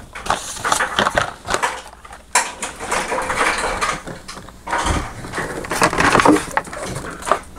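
Hands rummaging through blister-packed diecast toy cars in a plastic storage tub: the plastic bubbles and cardboard cards crackle and rustle irregularly, with a brief lull about two seconds in.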